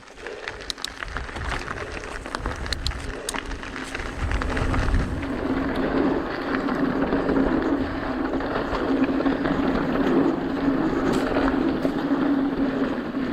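Mountain bike rolling fast down a dirt trail: tyre and trail noise with chain and frame rattles over rough ground, and a steady buzz that comes in about four or five seconds in as the speed and loudness build.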